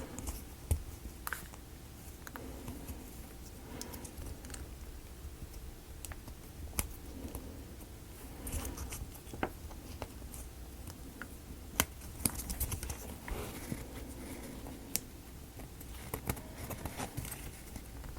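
Light clicks, taps and scrapes of thin wooden model-kit pieces being handled and fitted together, with a few sharper clicks scattered through.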